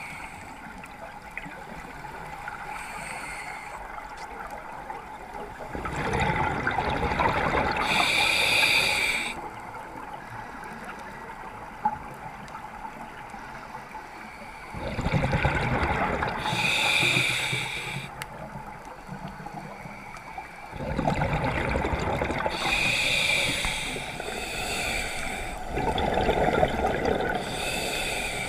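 A scuba diver breathing underwater through a regulator: three slow breaths with bubbling exhaust, each a few seconds long and ending in a brief hiss. A quieter steady water hiss fills the gaps between them.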